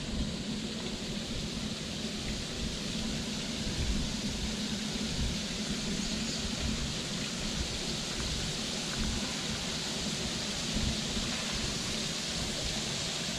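Steady rushing of falling water, with an unsteady low rumble underneath.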